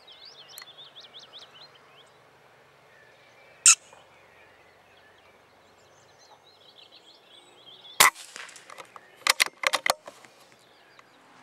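Birds chirping, cut by sharp gunshot-like cracks. A single crack comes a few seconds in, a louder one with a ringing tail about two-thirds of the way through, then a quick run of four or five near the end.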